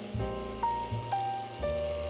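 Background music: a melody of held notes stepping down in pitch, three notes about half a second apart, over a soft lower accompaniment.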